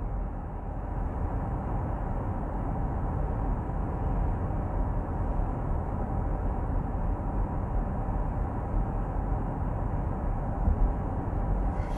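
Cabin noise inside a 2021 Jaguar I-Pace EV400 electric SUV cruising at 80 km/h on Goodyear Eagle Sport all-season tyres: a steady, low rumble of tyre and wind noise. It is level throughout, at about 61 to 64 dB in the cabin.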